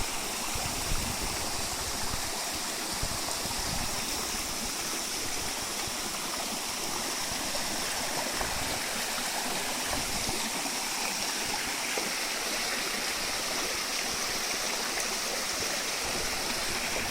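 Small waterfall and its stream in a mountain gorge, water pouring and splashing in a steady rush.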